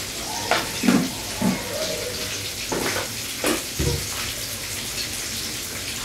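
Kitchen tap running into a sink while dishes are washed under it, with a few knocks and clatters of crockery in the first four seconds.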